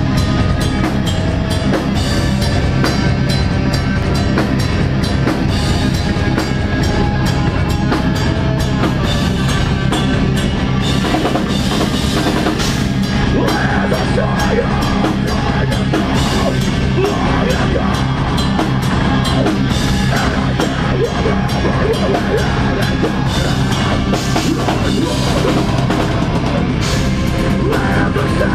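Deathcore band playing live and loud: electric guitars and bass over fast, dense drumming on a full drum kit.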